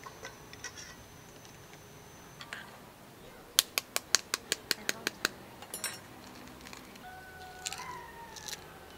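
A salted duck egg's shell tapped rapidly with a hard utensil, about ten quick sharp taps in a row, cracking the shell open; a few lighter clicks of shell being picked away before and after. A bird gives a short rising call near the end.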